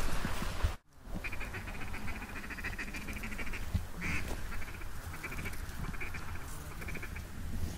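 Duck quacking in quick runs of chattering notes, with a louder quack about four seconds in. The sound cuts out briefly about a second in.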